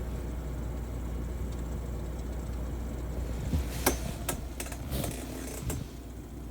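Desktop computer fan running with a steady low hum and whir, the noise that prompts the troubleshooting. From about halfway through, a series of sharp clicks and knocks sound over it.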